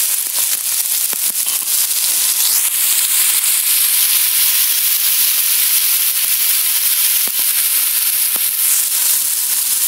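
Splash of water added to hot oil in a wok of stir-fried cucumber and shrimp, sizzling and crackling hard. A thin, high steady hiss of steam starts about two and a half seconds in and stops near the end.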